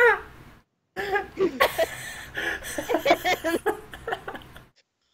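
The end of a shouted line, then people laughing in uneven bursts for a few seconds before stopping.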